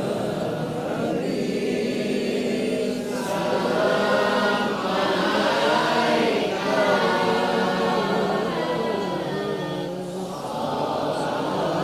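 A male qori reciting the Quran in a high, melodic voice, holding long notes that waver in ornamented turns. He breaks off briefly about ten seconds in, then goes on.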